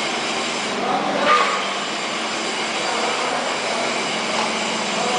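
A 175 kW induction melting furnace running at power: a steady hiss and roar with a constant low hum and faint high steady whines. There is a brief louder noise about a second in.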